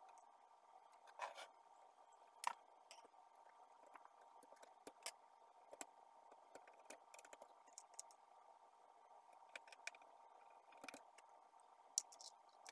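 Faint, scattered clicks and scrapes of a screwdriver and hands working on the plastic and metal parts of a Pantum P2516 laser printer's fuser unit, over a low steady hiss.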